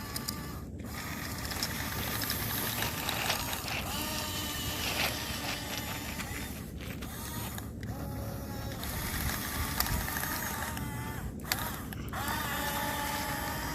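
Small electric gear motors of a Huina radio-controlled excavator whining as it works, the pitch rising and falling as the motors start, stop and change speed.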